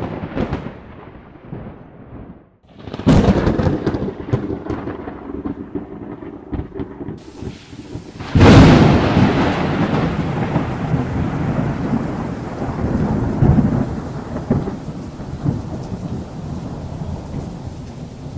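Thunder from a nearby lightning storm: a sharp crack at the start, another about three seconds in, and the loudest clap about eight seconds in, each rolling on into a long, slowly fading rumble.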